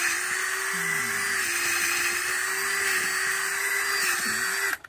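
Handheld power drill spinning a long auger bit down into potting soil to bore a deep planting hole. It gives a steady motor whine that cuts off suddenly near the end.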